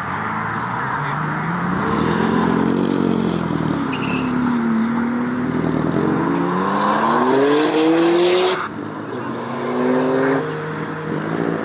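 Volkswagen Golf engine revving as the car pulls away. There is a short rev, then a long rising pull that cuts off suddenly about two-thirds of the way through, then more short rising revs.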